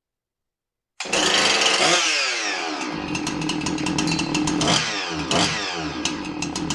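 Husqvarna 346XP two-stroke chainsaw engine running after a second of silence: it comes in abruptly at high revs, drops quickly toward a lower speed, and is blipped twice near the end. Run apart from its clutch, it runs without the clanking rattle, showing that the noise came from the worn, sloppy clutch flyweights and not from the engine.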